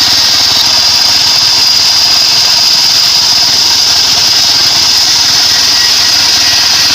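Home-built bandsaw sawmill running steadily: an engine drone with a constant high-pitched whine over it.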